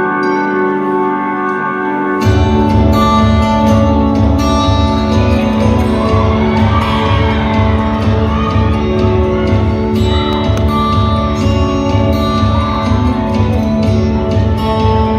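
Recorded song played back in a large gym: sustained chords, joined about two seconds in by a steady, heavy bass beat, with a singing voice coming in around the middle.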